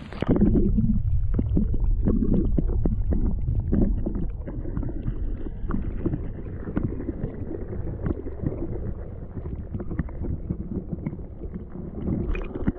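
Muffled underwater sound from a camera held below the river's surface: a dense low rumble of water moving around it, with many small knocks and crackles. It is loudest just after it goes under, then eases, and brighter sound returns near the end.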